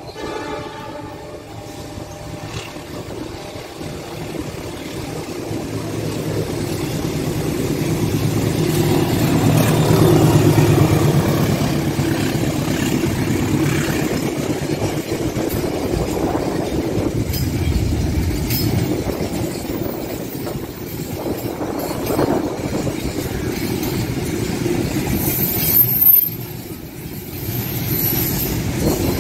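Diesel locomotive hauling a container freight train approaches and passes close by, its engine growing louder over the first ten seconds. Then comes the steady rolling and clatter of the container wagons going past, with a thin high wheel squeal and a brief loud knock near the end.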